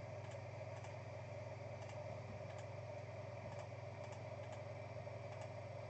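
Scattered faint clicks of a computer mouse and keyboard over a steady low hum.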